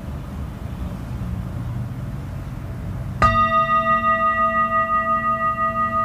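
A low rumble, then a metal singing bowl struck once about three seconds in. It rings on with several clear tones and a slow, wavering pulse.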